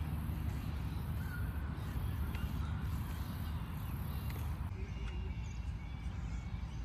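Wind rumbling on the microphone, with a few faint bird chirps now and then.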